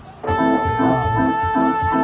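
Music with a steady beat: sustained keyboard-like chords over a regular low thump, kicking in loudly about a quarter of a second in.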